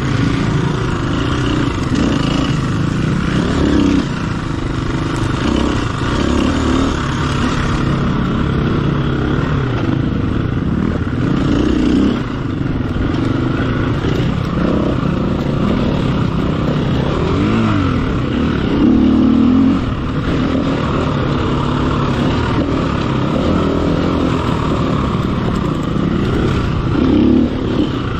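Off-road motorcycle engine racing along a trail, revving up and down constantly through the throttle changes, with brief louder bursts of throttle about two-thirds of the way in and near the end.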